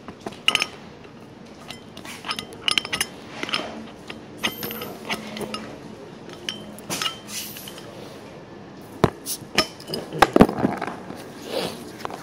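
A small metal tool clinking and scraping against the crown cap and neck of a clear glass beer bottle as the cap is pried off. Irregular clicks and taps, loudest in a cluster about nine to ten and a half seconds in.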